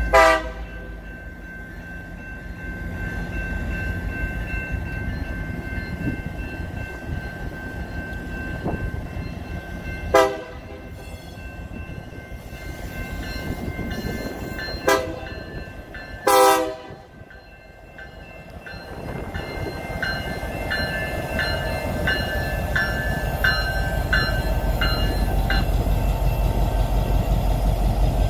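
BNSF GP60M-3 diesel locomotive sounding its air horn four times as it approaches a grade crossing, the third blast short. Its diesel engine then grows louder as it rolls up and passes close by, with a bell ringing in steady strokes for a few seconds.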